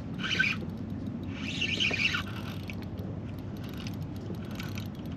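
Spinning reel on a hooked sheepshead: two short squealing bursts in the first two seconds as line is pulled off the drag, then quieter cranking of the reel.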